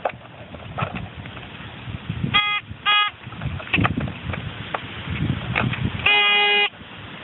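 Digging in turf and soil, with irregular scraping and crunching, broken by a metal detector's electronic target beeps: two short beeps about two and a half seconds in, then one longer steady tone a little after six seconds.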